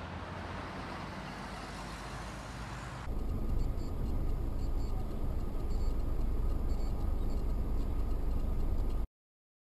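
Car driving, heard from inside the cabin: steady road and engine noise, at first mostly hiss. About three seconds in it switches abruptly to a louder, deep rumble, which cuts off near the end.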